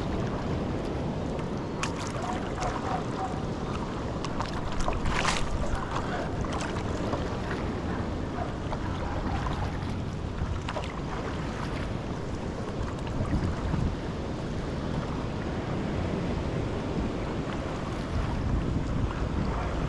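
Wind buffeting the microphone over water splashing and dripping from stand-up paddleboard paddle strokes, with a louder splash about five seconds in.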